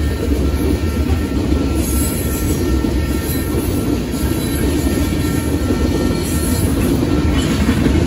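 Freight train of covered hopper cars rolling past at a grade crossing: a steady, loud rumble of steel wheels on rail, with brief high-pitched wheel squeals a couple of times.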